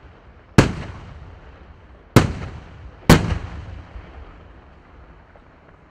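Three loud firework shell bursts in a Bruscella Fireworks display: one just over half a second in, then two close together about a second apart near the middle. Each bang is followed by a rolling echo that fades away.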